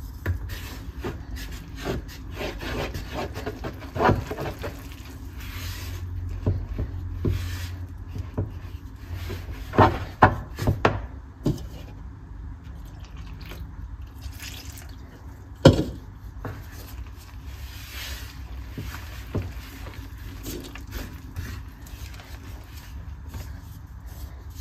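Water poured into a bowl of flour and stirred in for bread dough, a utensil scraping and knocking against the bowl now and then; the loudest knocks come about ten seconds in and again near sixteen seconds.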